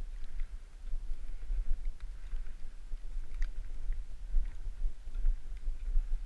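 Snowshoe steps crunching through fresh snow in an uneven walking rhythm, over a steady low rumble on the microphone.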